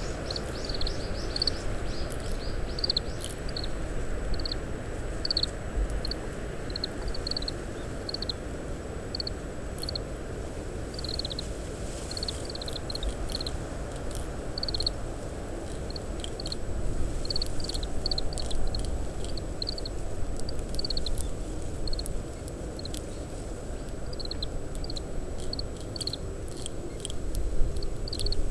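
Oriental greenfinch giving soft, short chirping ground calls in quick irregular runs over a steady low rumble of wind on the parabolic microphone.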